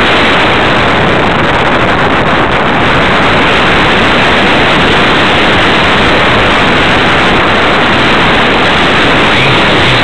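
Loud, steady rush of wind and propeller noise from a radio-controlled Super Cub model plane in flight, picked up by its onboard camera's microphone.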